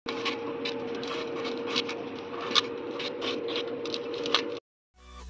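A kitchen knife cutting through a tomato on a stainless-steel plate, the blade tapping the steel in irregular sharp clicks over a steady hum. The sounds cut off suddenly, and after a brief silence music fades in near the end.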